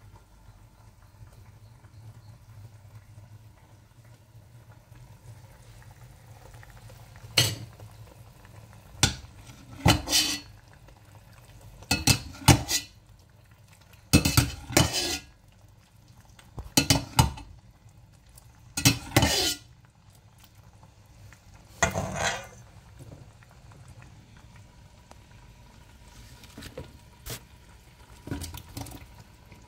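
A metal ladle clattering and scraping against a stainless steel pot in about eight short bursts, over a low steady background hum, with a few softer knocks near the end.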